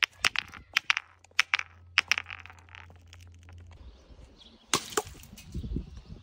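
Small amber glass bottle knocking and clinking as it tumbles down stone steps: a quick run of sharp knocks over the first two seconds, then one louder sharp crack near the end.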